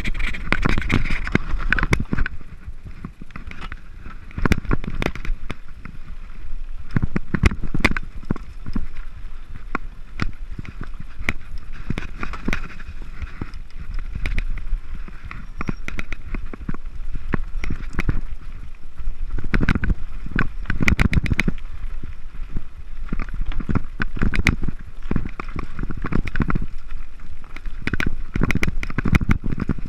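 Mountain bike rolling down a rough dirt and rock singletrack: tyres rumbling over the ground, with many sharp rattles and knocks from the bike jolting over stones, and wind buffeting the microphone.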